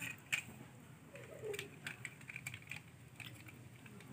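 Light, scattered clicks and taps of small plastic toy tractors being handled and knocked together, with one sharper click about a third of a second in.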